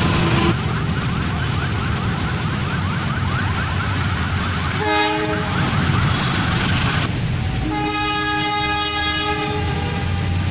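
Indonesian diesel locomotive horn sounding the semboyan 35 warning signal: a short toot about five seconds in, then a longer blast of about two seconds, over steady train and background noise.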